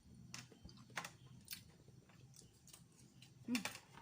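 A few light clicks and taps from handling food while eating, about three of them in the first second and a half, with a brief voiced sound near the end.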